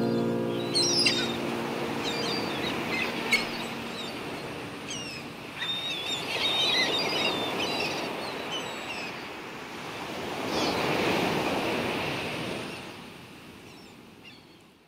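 Sea waves washing on a shore with small birds chirping, as the tail of a held music chord dies away over the first two seconds or so. A wave swells up about ten seconds in, and then the whole sound fades out.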